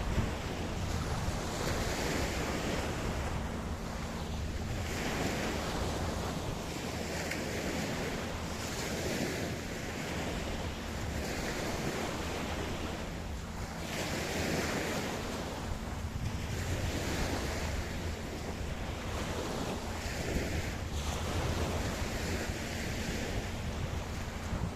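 Ocean waves breaking and washing up a beach: a continuous rush of surf that swells every couple of seconds.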